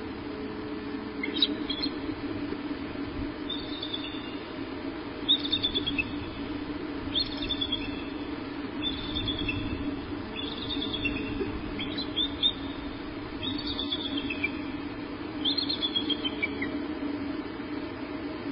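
Bald eagle calling: about nine short runs of high, thin chirps, each dropping slightly in pitch, roughly every two seconds, over a steady low hum.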